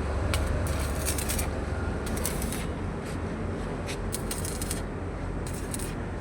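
Electric arc welding: the arc crackles and sputters in short, irregular bursts over a steady low hum.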